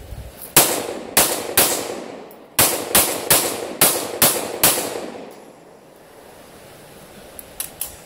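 Handgun fired nine times at close range: three shots, a pause of about a second, then six more in quick succession, each a sharp crack with a short echo.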